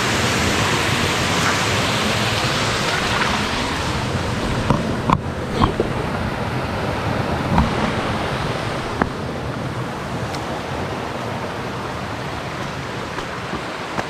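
Rushing water of a small waterfall and rapids, a steady loud rush that slowly grows quieter, with a few short sharp knocks around the middle.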